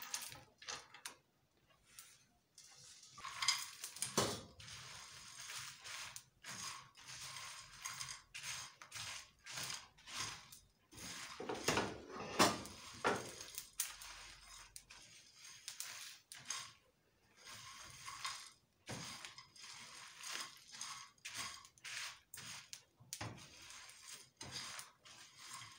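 Dry whole spices, mainly dried red chillies and coriander seeds, being stirred with a spoon in a nonstick frying pan during dry roasting. The spices rattle and scrape in many quick, irregular clicks.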